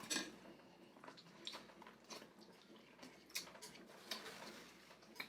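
Faint mouth sounds of someone eating a vegan seafood boil: chewing with a few short, wet smacks spread through.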